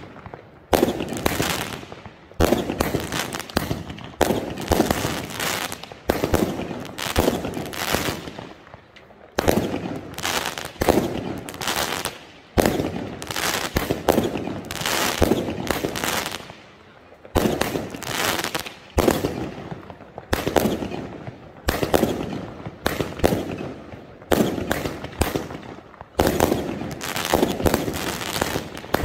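Firework battery firing shot after shot: a steady string of loud bangs, about one to two a second, each trailing off before the next.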